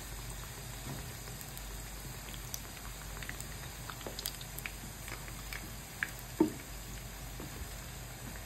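Beef pastels deep-frying in hot oil in a pan: a steady sizzle with scattered crackles and pops. One louder knock about six and a half seconds in.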